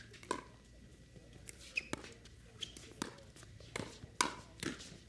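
Pickleball rally: paddles striking the hard plastic ball, a string of sharp pops roughly every half second to a second.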